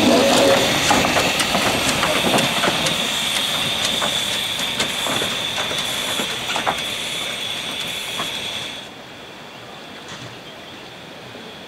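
Narrow-gauge steam train running slowly, with a steady steam hiss and irregular clicks of wheels on the rails. The hiss cuts off suddenly about nine seconds in, leaving a much quieter background.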